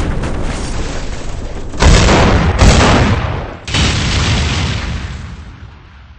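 Loud rumbling booms like explosions. A rumble already under way is hit by a fresh sudden boom about two seconds in and another near four seconds, and the last one fades away slowly.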